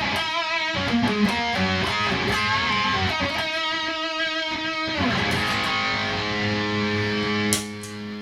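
Electric guitar played through a Boss Katana 100 amp on its lead sound, at the louder lead volume set by the expression pedal: single-note lead lines with vibrato, then held notes that ring and drop away near the end.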